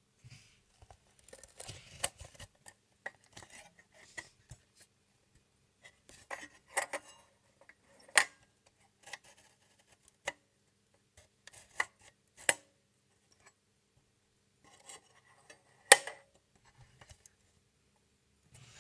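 An old mechanical alarm clock being handled: irregular metallic clicks and short rubbing sounds, with several sharper clicks, the loudest one near the end.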